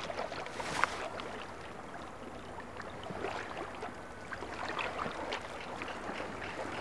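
Shallow water lapping and splashing softly as a group of caimans shifts about in it, with small scattered ticks and drips over a steady wash.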